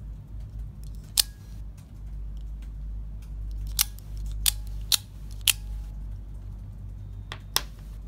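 A mini out-the-front (OTF) automatic knife's spring-driven blade snapping out and back in: six sharp, unevenly spaced clicks.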